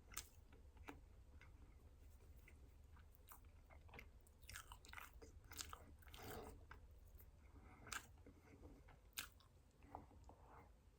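Faint close-up chewing of a soft, pound-cake-like chocolate ring cake, with irregular small clicks and lip smacks.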